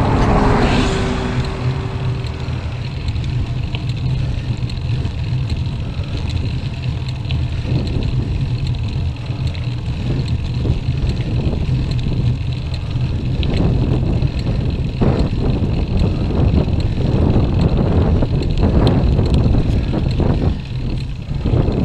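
A single-decker bus passing close by, its engine note and rush fading over the first couple of seconds, then a steady low wind rumble on the microphone of a bike-mounted camera, growing rougher and gustier in the second half.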